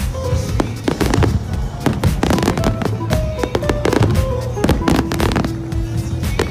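Aerial fireworks bursting in rapid succession, a dense run of bangs and crackles, with music playing alongside.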